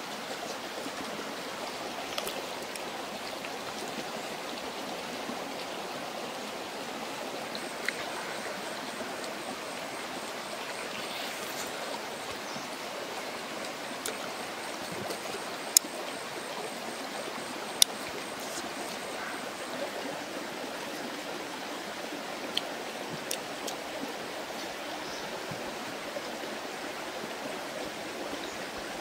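Steady rush of a flowing stream, with a few sharp clicks scattered through it, the two loudest a couple of seconds apart just past the middle.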